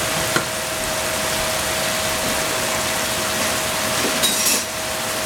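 Mushrooms simmering down in sauce in a frying pan, a steady hiss with a steady hum under it and a couple of small pops, as the liquid cooks off.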